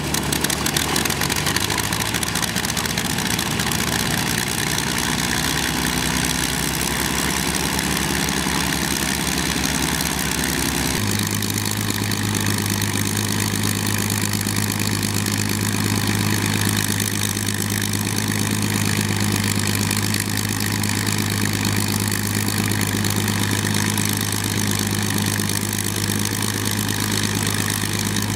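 The twin Rolls-Royce Merlin V12 piston engines of a de Havilland DH-98 Mosquito running at idle. About eleven seconds in, the engine note abruptly changes and settles into a steady drone.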